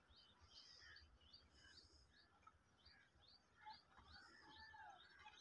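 Faint birds chirping outdoors: a steady run of short high chirps, about two a second, with a few lower whistled notes about four seconds in.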